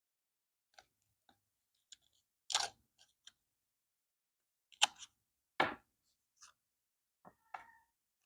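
Stationery and packaging being handled during an unboxing: a string of separate light clicks, taps and brief rustles with silence between them, two louder knocks near the middle.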